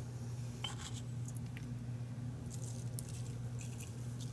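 Coarse ground black pepper sprinkled by hand onto oiled asparagus in a baking dish: a few faint, scattered soft ticks and rustles over a steady low hum.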